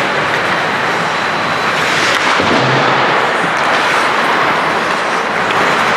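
Ice hockey game sounds in an arena: a steady wash of noise from skates on the ice and play, with a couple of faint sharp knocks.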